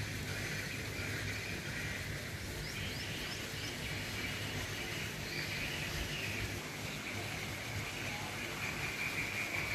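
Outdoor ambience: a steady high hiss over a low rumble, with a few short bird chirps about three seconds in.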